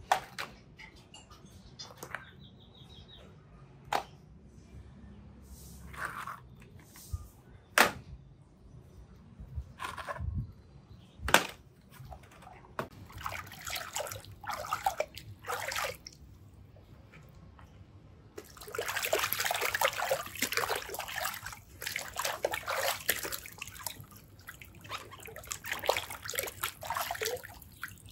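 Hands splashing and swishing in a basin of water, washing plastic toys; the splashing starts about halfway through and is heaviest and steady in the last ten seconds. Before that, a few separate sharp knocks of hard plastic toys being set down.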